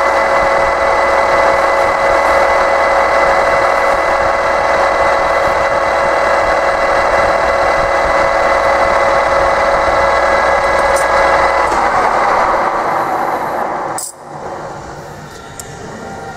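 Metal lathe running with a steady whine while a part spins in its chuck. About fourteen seconds in, the sound cuts off abruptly and a quieter, different sound follows.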